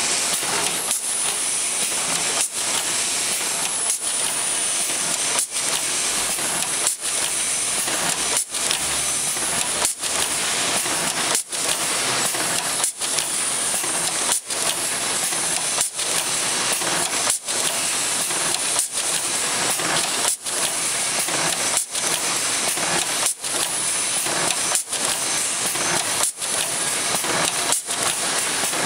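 KEH3 automatic chain welding machine running as it welds grade-80 chain links: a steady hissing, mechanical clatter broken by a brief dip about every one and a half seconds, in a regular cycle.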